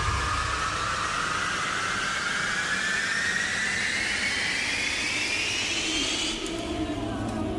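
Soundtrack riser: a steady rush of noise with a whine that climbs slowly in pitch for about six seconds, then cuts off suddenly about a second before the end.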